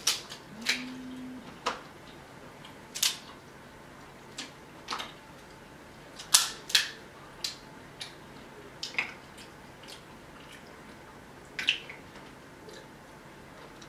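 Snow crab legs being cracked and snapped apart by hand. About a dozen sharp shell cracks come at irregular intervals.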